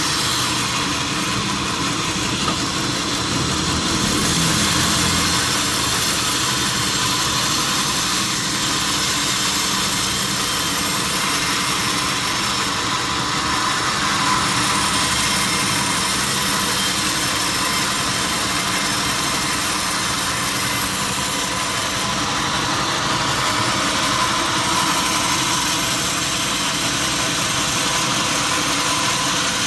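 Sawmill saw running steadily, with a continuous hiss over a low machine hum.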